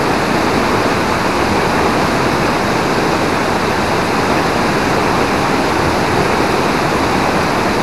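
Steady rushing of river rapids over rocks close by, with a waterfall pouring into the river. It is one even wash of water noise that does not change.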